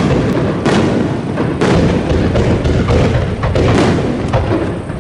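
Aerial firework shells of a rapid-fire starmine barrage bursting in quick succession, a boom or thud every half second to second over a continuous low rumble.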